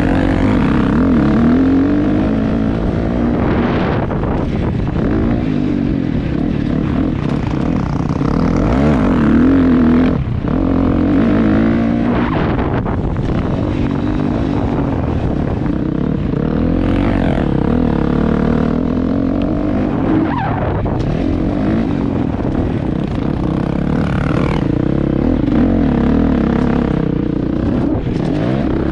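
Dirt bike engine running under load, its pitch rising and falling again and again as the throttle opens and closes, with a few brief drops off the throttle.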